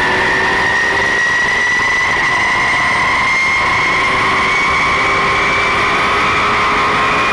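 Porsche 911 GT3 Cup race car's flat-six engine under full load, its pitch rising slowly and steadily as it pulls through one gear, heard loud from inside the stripped cockpit over a steady rush of noise.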